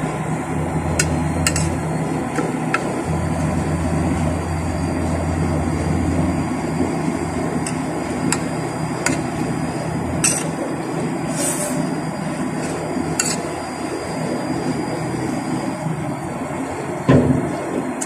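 Metal spoon clinking and scraping against a ceramic plate of rice in scattered short clicks, over a steady low hum. A louder dull thump comes near the end.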